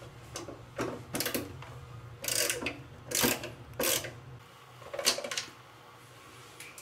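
Screws being turned out of a Hanssem rain-shower mixer body with a hand screwdriver: several short rasping, clicking bursts of metal on metal.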